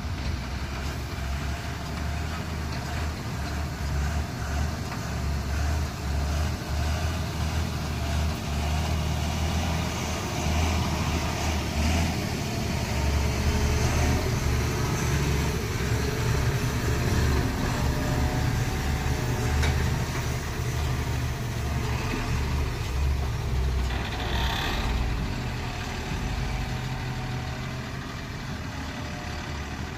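Diesel engine of a Tata tipper truck running as the truck moves slowly through mud. It grows somewhat louder in the middle and eases off near the end.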